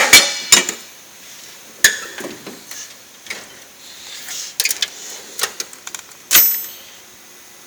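Metal tool chest drawers being closed and opened, with clacks and rattles from the drawer slides and the tools inside. There is a loud clank at the start and another metallic clank about six seconds in that rings briefly.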